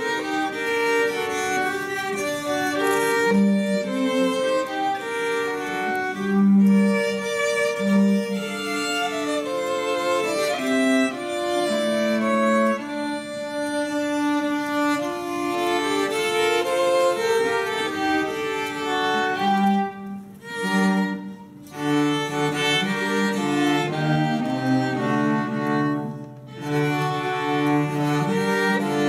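Renaissance music played by a quartet of bowed strings, two violins over two low instruments held between the knees, in several parts with held notes and brief pauses between phrases.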